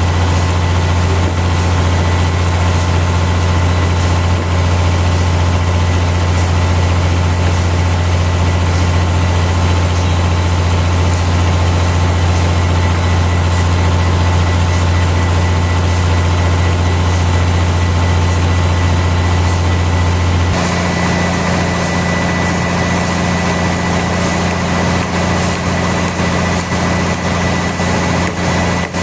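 Sawmill machinery running steadily: a loud, heavy engine-like drone with a low hum. About 20 seconds in the sound shifts abruptly, the low hum dropping and a high steady whine coming forward.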